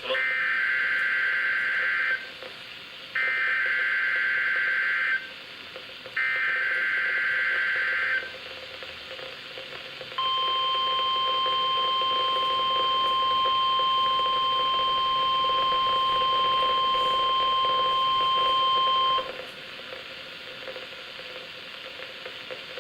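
NOAA Weather Radio Emergency Alert System test: three identical warbling SAME data-header bursts of about two seconds each, a second apart, then the steady 1050 Hz weather-radio warning alarm tone held for about nine seconds and cutting off, followed by the radio's steady hiss. These signals make alarm-equipped weather radios switch on automatically.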